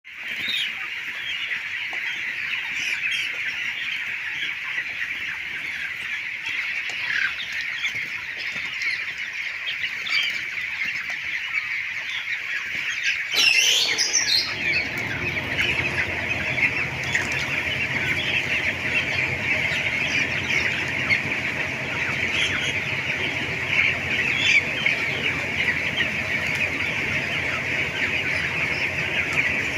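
A poultry-house flock of chickens calling all at once, a dense, continuous mass of clucking and cheeping. A louder squawk stands out about halfway through, and at the same time a low steady hum starts and keeps on under the flock.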